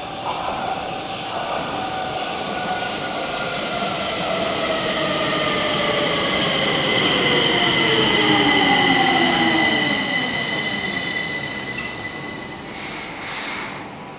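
Stockholm metro train slowing down: its motor whine falls steadily in pitch over high, steady wheel squeal, growing louder before easing off. A couple of short hissing bursts come near the end.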